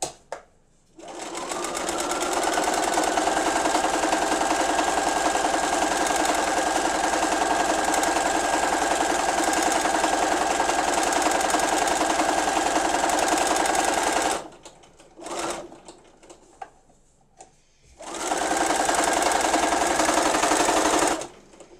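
Domestic sewing machine free-motion stitching at a steady, fast speed. It speeds up about a second in and runs for about thirteen seconds, then stops with a few faint clicks while the fabric is shifted. It runs again for about three seconds before stopping.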